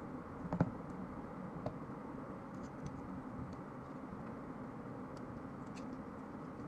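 Small metallic clicks of a 30 bore (7.62×25 mm Tokarev) pistol's parts being handled and fitted together: one sharp click about half a second in, a softer one about a second later, then a few faint ticks, over a steady background noise.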